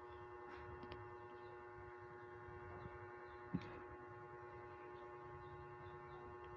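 Faint steady hum made of several held tones, with a few soft clicks just under a second in and one short knock about three and a half seconds in.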